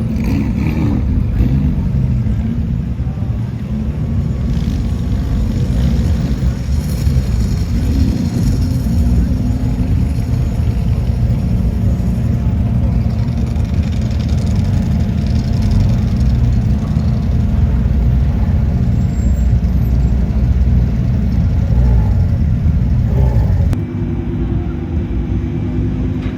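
Sports car and supercar engines running as the cars roll in, a steady deep exhaust rumble with brief rises and falls in pitch near the start. The sound changes abruptly near the end.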